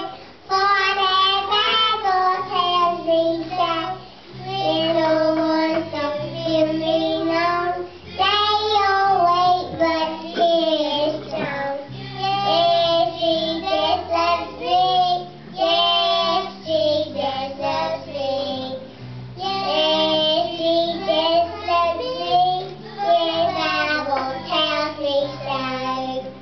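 Young girls singing a song in phrases with brief pauses, over an instrumental accompaniment of sustained low chords.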